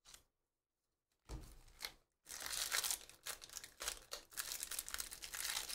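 Foil wrapper of a 2019 Bowman Draft jumbo trading-card pack being torn open and crinkled by hand, a dense crackling that starts about two seconds in, after a couple of soft handling sounds.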